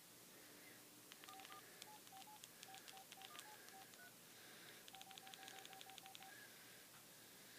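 Faint keypad beeps from a Pantech cell phone as a text message is typed: short single-pitch tones, each with a light key click. They come in a scattered string for a few seconds, then a quick, even run of about eight beeps.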